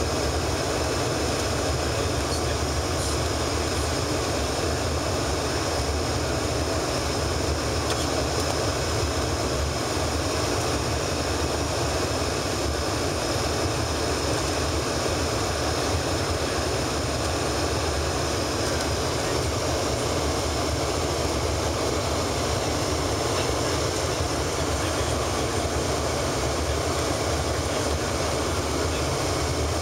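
Steady cabin noise of an Embraer ERJ-145 regional jet on its approach to land: the even rush of its rear-mounted turbofan engines and the air streaming past the fuselage, heard from inside the cabin.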